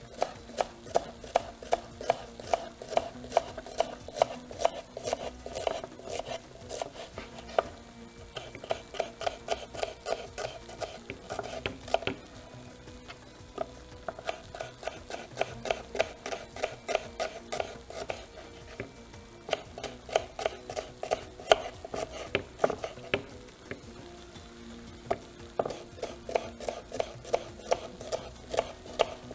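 Kitchen knife dicing onions on a wooden cutting board: quick runs of sharp knocks, a few a second, with short pauses between the runs.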